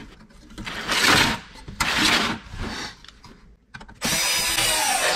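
A cordless screwdriver's motor runs steadily for about a second near the end, driving out a screw from a car radio's sheet-metal chassis. Before it come a few noisy swells of the metal unit being handled on the bench.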